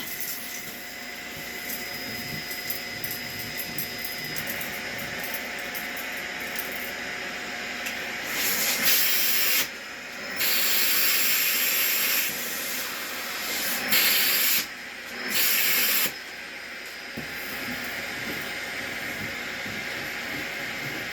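Vacuum cleaner running steadily with a hissing rush as it sucks up spilled trash and carpet deodorizer powder. About halfway through come four louder surges of high hissing, each a second or two long.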